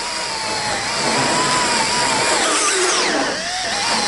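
Makita cordless drill spinning a small round burr, grinding a pinhole knot out of a paint-grade wood door stile. The motor's whine wavers and dips in pitch around three seconds in before climbing back.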